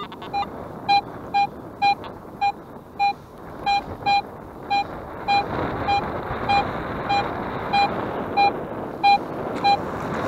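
Metal detector beeping a short, mid-pitched tone a little under twice a second in an even, steady pulse, signalling a metal target in the dug hole.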